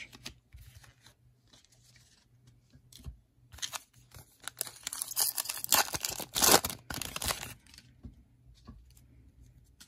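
Shiny foil wrapper of a Panini Prestige football card pack being torn open and crinkled. It comes as a run of ripping bursts from about a third of the way in, loudest just past the middle, then stops.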